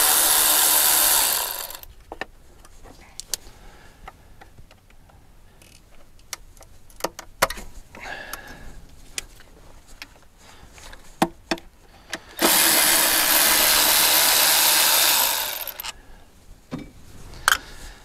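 Cordless electric ratchet spinning out the 8 mm rocker cover bolts: one run stops about a second and a half in, and a second run of about three seconds starts near two-thirds of the way through. Light clicks and knocks of tools and bolts being handled in between.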